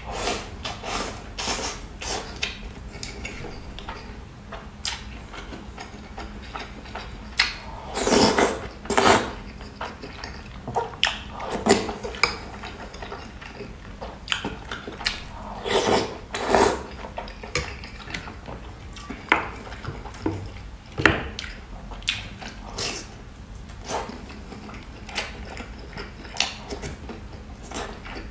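Close-miked eating: chewing and slurping mouth sounds, with chopsticks tapping against a glass bowl again and again. Louder bursts come about eight seconds in and again around sixteen seconds.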